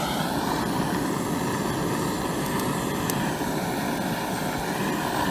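Steady rush of a gas torch burner's flame, its pitch wavering slowly, heating an exposed asphalt waterproofing layer until it softens.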